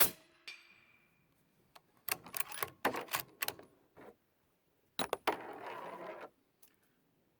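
Suppressed 300 Blackout subsonic rifle shot, a short muffled crack, followed about half a second later by the ring of a steel plate being hit downrange. Then a run of metallic clicks and rattles as the bolt-action rifle's bolt is worked to chamber the next round.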